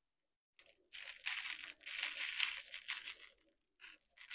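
Coarse scented Epsom salt crystals sprinkled from a tub onto a glue-coated glass mason jar and falling onto a paper plate, a gritty rustle in several spurts. It pauses briefly before starting again near the end.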